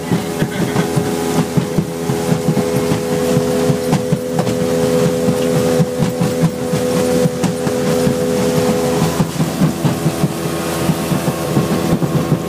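Motorboat's outboard engine running steadily at speed, a constant drone with a higher tone that fades out about nine seconds in, over rushing wind and water noise.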